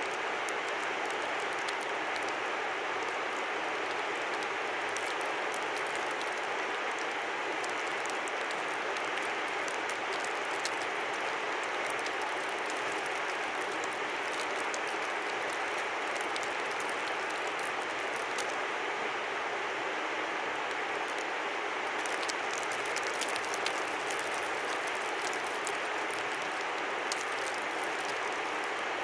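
A river flowing: a steady, even rushing noise with many small high ticks scattered over it, thickest about three-quarters of the way through.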